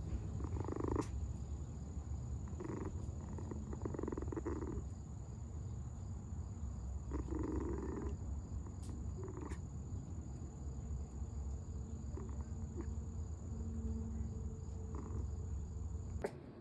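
Puppy growling: a steady low rumble with short, louder grunting growls every second or few, stopping abruptly near the end.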